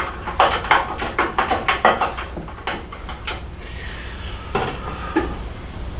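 Metal hand tools clicking and clinking against the bolts and crash bar, a quick irregular run of sharp metallic clicks for about three seconds, then a few scattered clinks.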